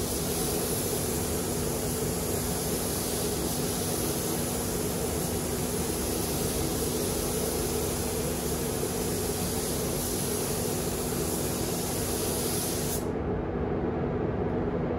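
Gravity-feed paint spray gun hissing steadily as compressed air sprays red paint, over a steady low hum from the spray booth. Near the end the hiss stops suddenly and only the low hum carries on.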